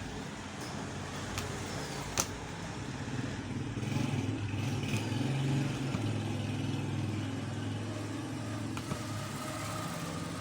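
An engine running steadily with a low rumble, with a sharp click a little over two seconds in.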